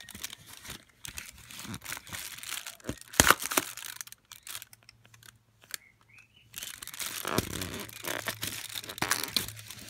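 Fingers picking and scratching at the cardboard doors of an advent calendar, with crinkling and tearing of the card, in two spells with a quieter gap between. A sharp knock about three seconds in is the loudest sound.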